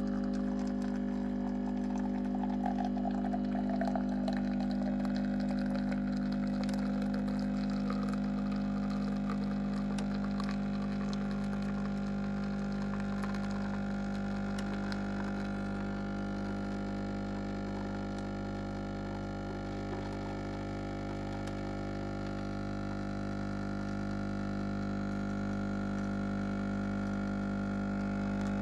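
Capsule coffee machine's vibratory pump humming steadily while it brews a lungo, with coffee running into the cup. A fainter tone slides downward over the first several seconds.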